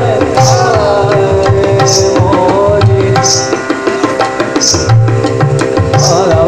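Devotional bhajan music: a tabla beat under held melodic tones, with a bright high accent about every one and a half seconds.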